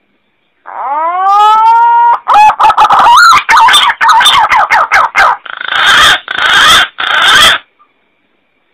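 Green pigeon (punai) calling, from a recording used to lure punai for hunting: a rising note, then a run of quick wavering, warbling notes, ending in three loud harsh notes.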